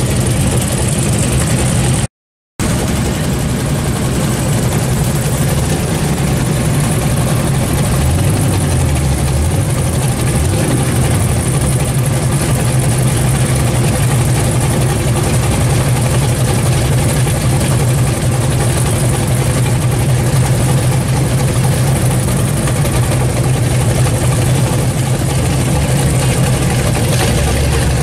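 A 1971 Chevrolet Chevelle SS's V8 idling with a steady low rumble. It opens with a Volkswagen Beetle driving by, cut off by a brief dropout about two seconds in.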